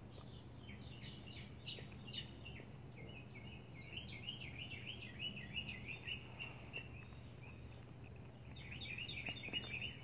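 Small songbirds singing: runs of quick, short, high chirping notes, densest in the middle and again near the end, over a steady low hum.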